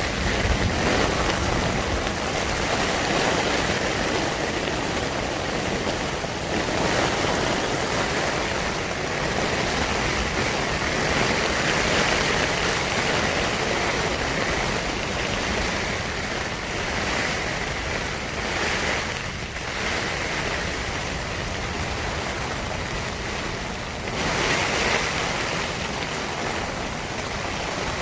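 Thunderstorm wind and heavy rain, a loud steady rushing that swells and eases, with brief lulls about six seconds in, near twenty seconds and about twenty-four seconds in.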